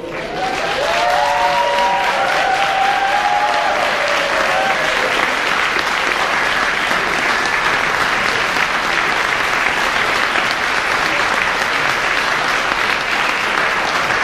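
A large seated crowd applauding steadily, with a few voices calling out over the clapping for the first five seconds or so.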